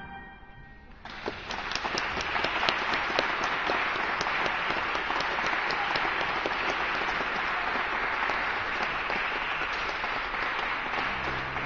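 Audience applause breaking out about a second in, after a violin piece ends, and continuing as steady, dense clapping; it is the audience's response to the end of the piece.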